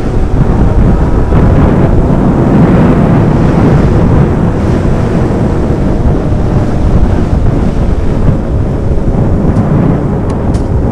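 Wind rumbling on a helmet-mounted microphone over the running engines of a group of sport motorcycles riding together at speed.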